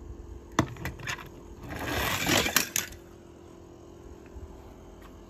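Die-cast toy cars clinking and knocking: a few sharp metallic clicks just under a second in, then a short swell of rushing noise about two seconds in that ends in two more sharp clicks.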